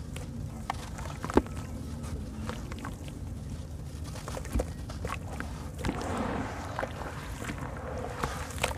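A lump of dry white sand-cement crumbling and crunching in the hands, with many small crackles, one sharp crack about a second and a half in, and bits dropping into a basin of water. From about six seconds in, the wet sand-cement sloshes and squelches as it is squeezed in the water.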